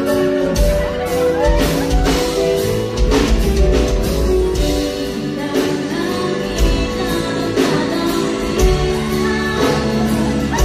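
Loud live music over a stage sound system, with a woman singing into a microphone over a steady drum beat.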